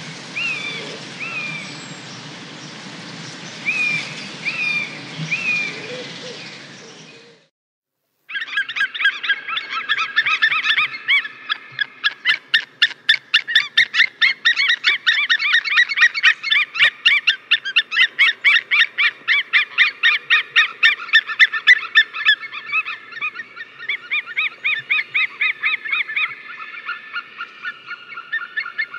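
Birds chirping now and then over outdoor background noise. After a sudden cut to a moment of silence, a long run of rapid, evenly repeated high-pitched calls follows.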